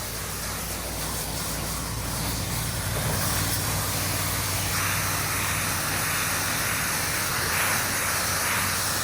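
Pressure washer engine running steadily under the hiss of a high-pressure water spray; the spray grows louder about three seconds in and again about five seconds in.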